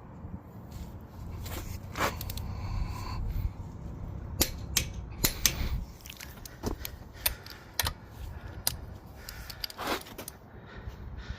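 Irregular sharp metallic clicks and clinks of hand tools and wheel hardware being handled while a wheel is mounted. The clicks are thickest in the middle of the stretch, over a low rumble in the first half.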